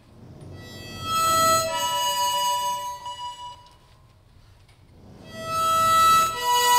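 Accordion playing long held chords that swell in with an airy rush beneath them, fade away to near quiet about three and a half seconds in, then swell up again near the end.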